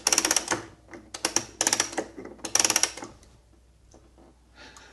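Small mechanism on a wall-mounted assemblage artwork worked by hand, giving rapid clicking in three short bursts over the first three seconds, followed by fainter handling sounds.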